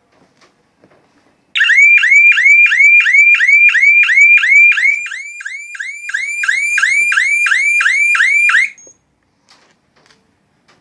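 Security alarm panel's siren going off: a loud, high-pitched whoop made of short rising sweeps, about three a second. It sounds for about seven seconds, dips a little in the middle and cuts off suddenly.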